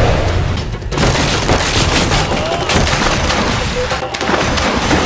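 Film action sound effects: a dense, continuous rumble of explosions with rapid gunfire cracks, splintering wood and splashing water as a jet ski smashes through a wooden pier.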